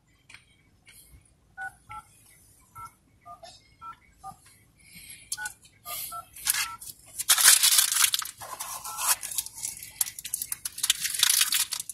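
Mobile phone touch-tone keypad beeps, about a dozen short two-note tones in uneven succession, as numbers are keyed into an automated phone line. From about seven seconds in comes a loud, continuous rustling and scraping.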